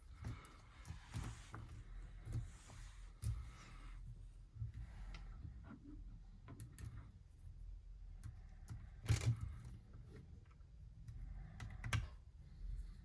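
Light, irregular clicks and taps of a small hand tool and metal screws as the carburetor block is screwed down onto a model aircraft engine. The sharpest knocks come about nine seconds in and again near twelve seconds.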